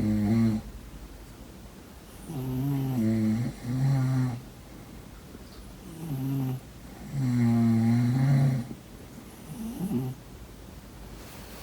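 Snoring: a series of about six separate snores, each with a steady low pitch, lasting half a second to a second and a half. One is already going at the start, and the longest comes about seven seconds in.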